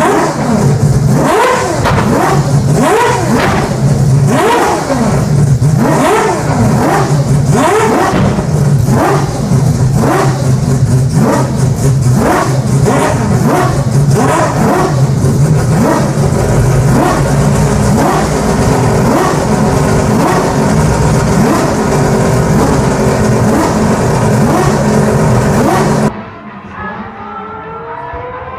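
Mazda four-rotor rotary race engine revved hard and repeatedly, its pitch rising and falling more than once a second, then running steadier. About 26 seconds in, the sound drops abruptly to a quieter engine climbing in pitch.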